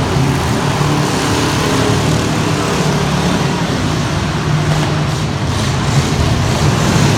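Truck engine running loud, its note rising and falling a little, under heavy wideband noise.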